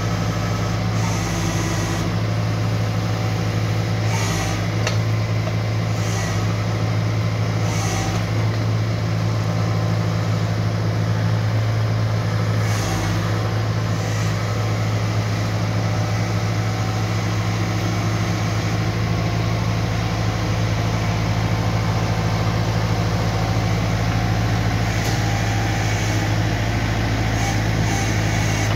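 Kubota tractor-backhoe's diesel engine running at a steady speed, with several short hissing sounds scattered through it.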